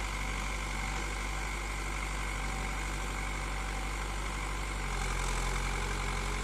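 Heavy machinery's diesel engine running steadily at a low, even speed.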